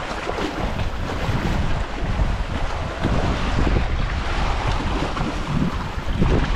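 Wind buffeting the microphone: a steady, loud rushing rumble that swells and falls slightly.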